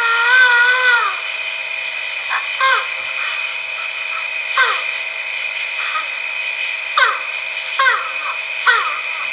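Animal calls played back from a microcassette tape through a Sony M-560V recorder's small speaker, over steady tape hiss and hum: one long wavering call, then about five short yelps that each drop in pitch. The owner takes them for the hairy creatures barking back and forth at one another.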